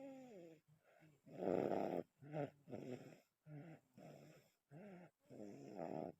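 Snoring in a run of irregular rasping breaths, each under a second, opening with a short whine that rises and falls in pitch.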